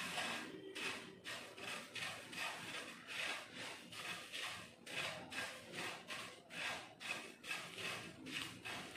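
Wooden spatula stirring puffed rice in a dry nonstick frying pan, a faint rustling scrape about twice a second as the grains are turned over during dry-roasting.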